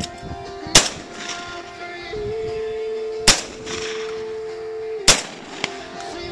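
Three shotgun shots fired at doves, sharp single reports spaced about two and a half and then two seconds apart.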